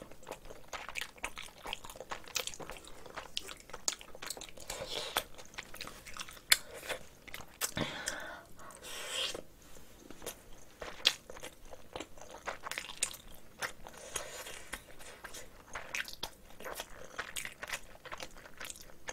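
Close-miked chewing of a mouthful of rice mixed with spicy marinated cockles: irregular wet mouth clicks and smacks.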